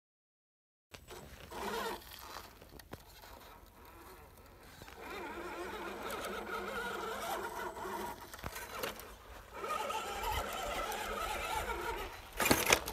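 Electric motor and geared drivetrain of an RC rock-crawler truck whining as it crawls up rock, the whine rising and falling with the throttle. Near the end comes a short burst of loud crackling clatter.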